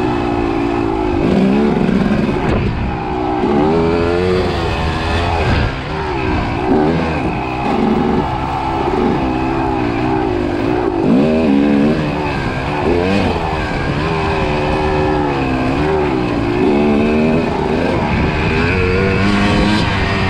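Kawasaki KX250 two-stroke dirt bike engine under hard riding, its pitch climbing and dropping again and again, roughly every second or two, as the throttle is worked.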